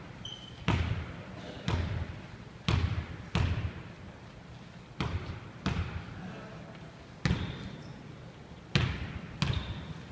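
Basketball bounced on a wooden gymnasium floor: nine separate bounces at uneven intervals of about a second, each followed by a short echo in the hall.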